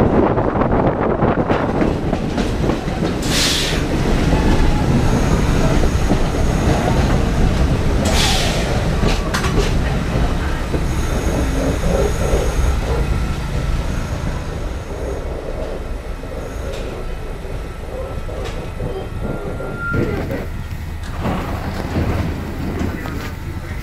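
New York City subway train running through a tunnel, heard from a camera mounted outside the car: a steady loud rumble of wheels on rail with a few sharp clacks and a faint high wheel squeal. The rumble eases off through the second half as the train slows into a station.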